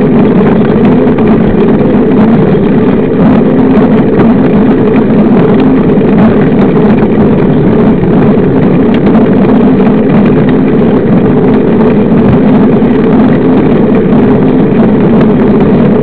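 Steady, loud drone of a knobby 29-inch mountain-bike tyre rolling on asphalt at a constant speed, mixed with wind on the microphone.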